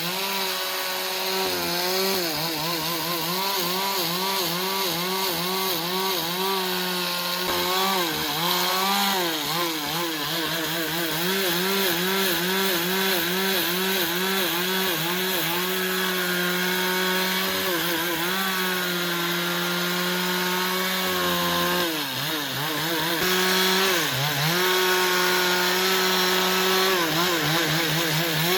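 Chainsaw running at high revs while cutting wood, its pitch wavering rapidly as the chain loads and unloads in the cut. The pitch drops more deeply a few times as the saw bogs down.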